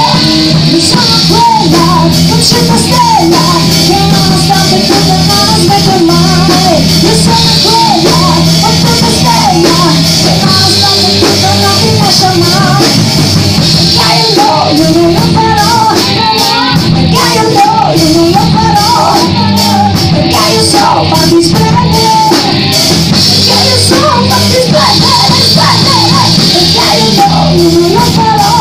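Rock band playing live and loud: electric guitar, bass guitar and drums.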